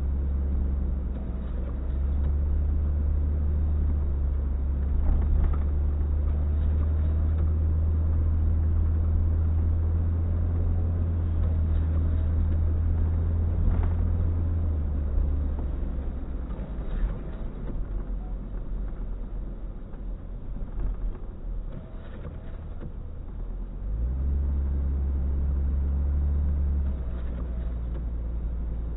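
Motor vehicle engine running with a steady low drone. It eases off about halfway through and picks up again sharply for a few seconds near the end.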